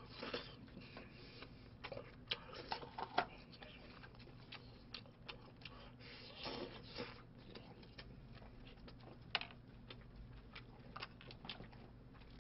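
Quiet eating at a table: scattered soft clicks of chopsticks against the dish and bowl, with a few short bursts of chewing.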